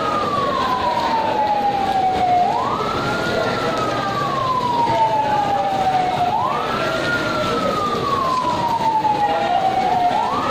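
Fire truck siren wailing: the pitch jumps up quickly and then slides slowly back down, a cycle repeating about every four seconds.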